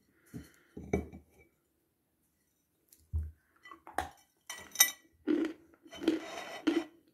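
A lump of dry chalk bitten off with a sharp crunch about four seconds in, then crunched and chewed in the mouth in dry, crackling bites. A couple of light knocks from handling come before it.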